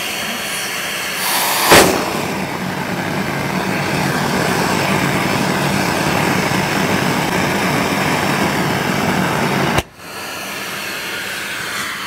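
Central vacuum baseboard sweep inlet switched on: a loud whoosh of air about a second and a half in, then a steady rush of suction with a low hum. It cuts off suddenly near the end when the inlet shuts, leaving the quieter steady run of the vacuum.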